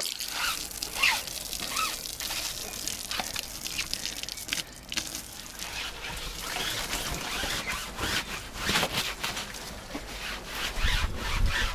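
Hose water splashing and dripping on a sailboat's deck in uneven spatters, with a low rumble near the end.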